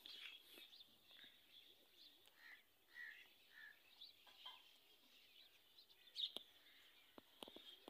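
Near silence in open fields with faint bird calls: a few short chirps about three seconds in, and a few soft clicks near the end.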